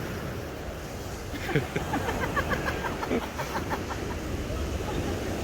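Ocean surf washing on the beach with wind rumbling on the microphone; faint distant voices come through in the middle.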